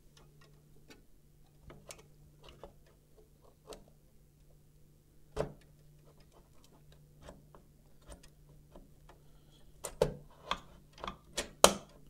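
MSI GTX 970 graphics card being pressed into a motherboard's PCIe x16 slot: scattered small plastic-and-metal clicks and knocks, then a cluster of sharper clicks near the end, the loudest as the slot's latch clicks into place.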